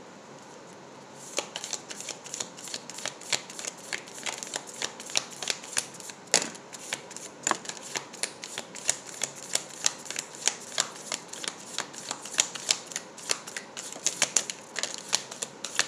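A deck of oracle cards being overhand-shuffled by hand: a quick, irregular run of light card slaps and snaps, starting about a second in.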